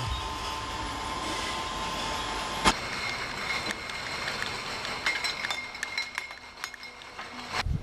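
Winery bottling line running: a steady mechanical rattle and hum of the conveyor and machinery, with glass wine bottles clinking against each other and the conveyor. One sharp knock comes about two and a half seconds in, and a run of small clinks near the end.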